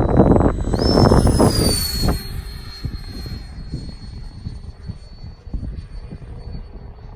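Electric ducted fan of a Flex Innovations FlexJet RC jet whining in flight. Its high whine climbs sharply about a second in, falls back within a second and then holds steady, with the loudest passage in the first two seconds. Wind buffets the microphone throughout.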